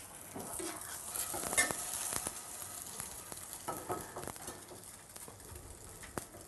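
An egg frying in oil in a stainless steel pan, sizzling steadily, while a metal ladle scrapes and taps against the pan as the egg is folded over into a half-moon pouch. The sharpest taps come about one and a half to two seconds in.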